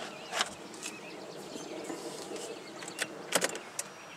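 A few sharp plastic-and-metal clicks from the 2008 Chevy Malibu's tilt-and-telescope steering column as its lock lever is released and the wheel is moved: one about half a second in, then a quick cluster about three seconds in.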